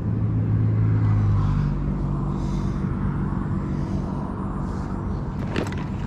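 Steady low drone of a motor running, changing tone about a second and a half in, with a few sharp scraping clicks near the end.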